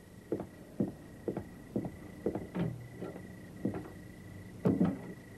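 Footsteps on a hard floor, about two a second, with a louder double knock near the end.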